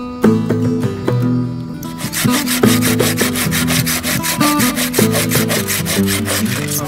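Hand pruning saw cutting through a wooden branch in quick, even rasping strokes, starting about two seconds in, over background music.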